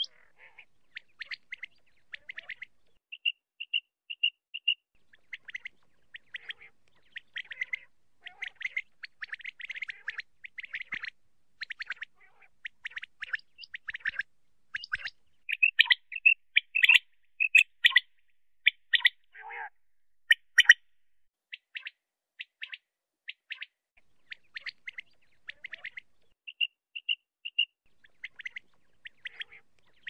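Common quail calling: short, sharp, high notes in quick series and clusters, some in even runs of three or four. The calls are loudest about halfway through.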